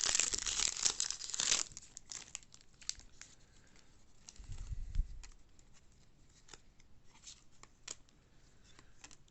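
A 2022 Topps Series 1 baseball card pack wrapper being torn open and crinkled for about the first second and a half, followed by quieter scattered clicks and rustles of the cards being handled, with a soft thump about five seconds in.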